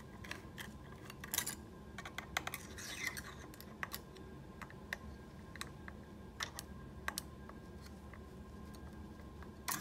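Faint, irregular light clicks and taps of hand tools on screws and the metal print head housing as the print engine's fastening screws are tightened. The clicks fall mostly in the first seven seconds and grow sparse after that.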